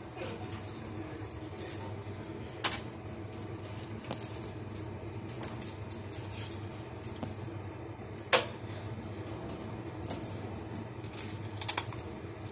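Scissors snipping and cracking through a sea urchin's shell: a run of small clicks with two sharp cracks, about 3 and 8 seconds in, over a steady low hum.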